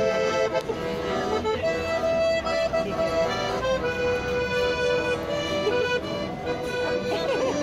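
Piano accordion played by a street busker: a tune of held notes over sustained chords, the notes changing about once a second.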